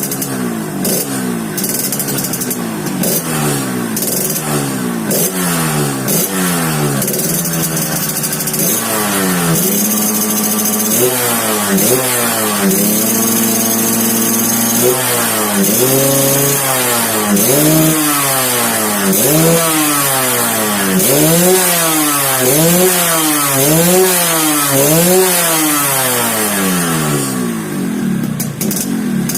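Yamaha RX-King's two-stroke single-cylinder engine revved again and again through an exhaust set up for a 'ngorok' (snoring) growl. The revs rise and fall, hold steady for a few seconds near the middle, then go up and down in regular blips about once a second toward the end.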